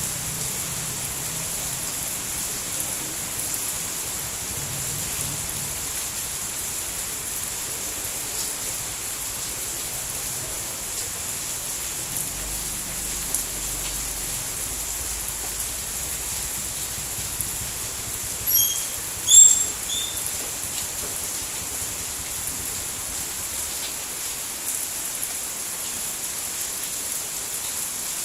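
Steady rain falling, an even hiss. About two-thirds of the way through, two short, high sounds stand out briefly above it.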